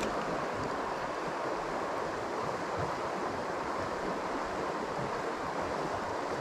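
Shallow river water running steadily over a riffle, an even rush with no break. A single light click right at the start.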